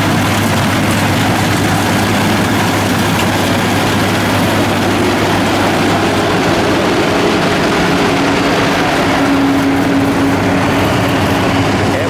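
Yanmar YH850 combine harvester's diesel engine running steadily.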